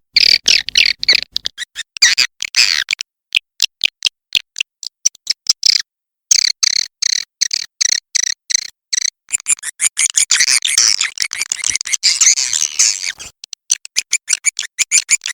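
Swiftlet lure-call track: short high swiftlet chirps repeated quickly and evenly, about three or four a second, with denser overlapping twittering near the start and again from about ten to thirteen seconds in.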